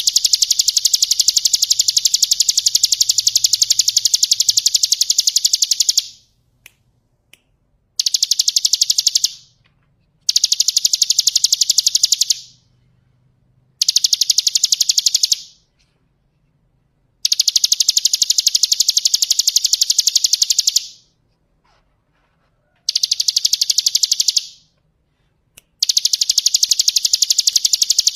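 A caged ciblek gunung, a prinia, singing in long, very fast trills held at one high pitch ("ngebren" song). There are seven bouts, the first about six seconds long and the rest two to four seconds, with short silent pauses between.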